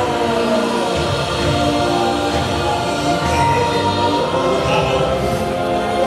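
Choral music from a dark ride's soundtrack: a choir singing long, held notes over instruments.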